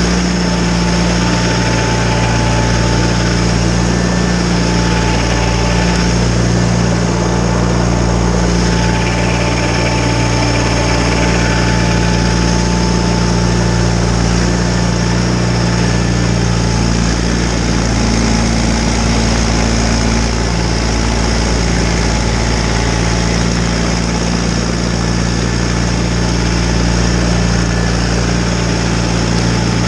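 John Deere 318 garden tractor's two-cylinder engine running steadily at an even speed, most likely driving the Model 49 front snowblower through snow.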